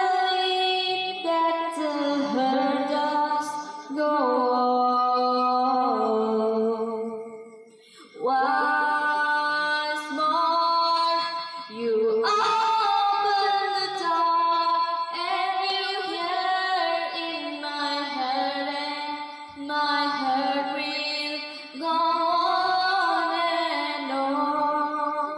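A young woman singing solo into a handheld microphone, with no instrument heard under the voice. She sings long held phrases with short breath pauses between them.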